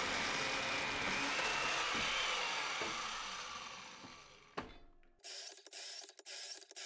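Electric chain mortiser running and cutting into a timber beam, its motor whine wavering, then spinning down over about two seconds. A sharp click follows, then a run of short rasping strokes about two a second.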